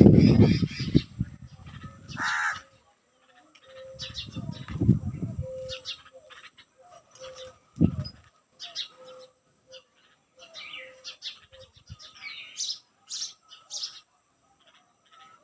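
Morning birdsong: several small birds chirping and tweeting in short, scattered calls, over a run of short low notes repeating about once a second. There is a single honking call about two seconds in, low rumbling noise at the start and again around five seconds in, and a dull thud near eight seconds.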